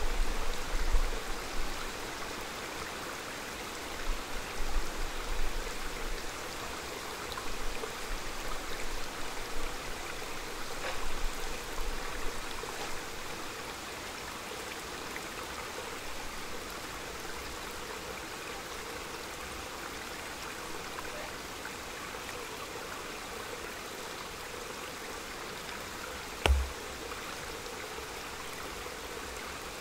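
Small mountain stream running steadily, with low gusts of wind through the first half. A single brief thump sounds near the end.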